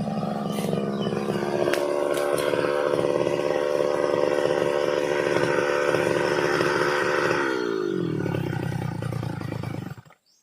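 Brush cutter engine running at high throttle, then the pitch falls smoothly to idle about eight seconds in, and the sound cuts off suddenly near the end. The machine won't spin up properly at full throttle, which the owner puts down to a worn clutch lining.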